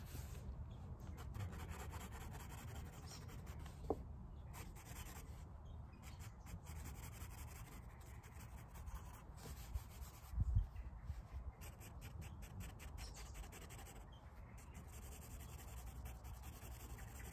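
Graphite pencil scratching and rubbing faintly on sketchbook paper in short shading strokes, with a small click about four seconds in and a soft knock about ten seconds in.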